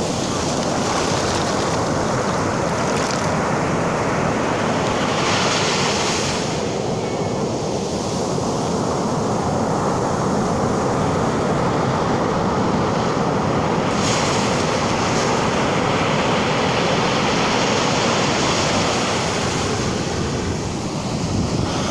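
Ocean surf breaking and washing on a beach, a continuous rushing with waves swelling now and then, mixed with wind buffeting the microphone.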